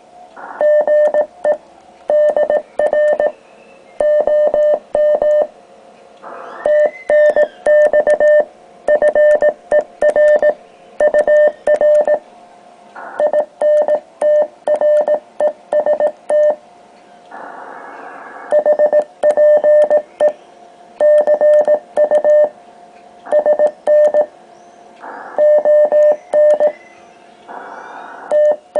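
Morse code sent by hand on homebrew twin (iambic) paddles: a steady mid-pitched sidetone beep keyed on and off in dots and dashes, in groups of characters with short pauses between, with the paddle levers clicking along with the keying.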